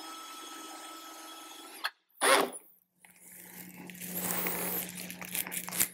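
Cordless drill running steadily at speed while boring a 3/4-inch hole through a motorcycle saddlebag lid, stopping abruptly about two seconds in. A brief loud burst follows, then, after a moment of silence, clicks and handling rattles of the drill and bit over a low steady hum.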